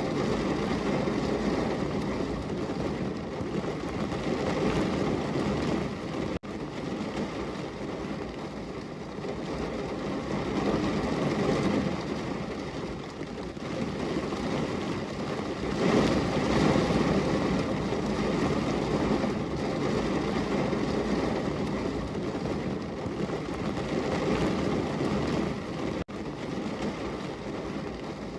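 Heavy downpour of rain against a window: a dense, steady rushing noise with a deep rumble that swells a little past halfway, broken twice by a momentary dropout.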